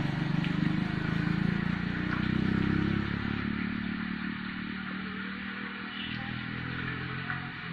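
A motorbike's engine running as it passes along the bank. It is loud for about the first three seconds, then fades steadily as it rides away.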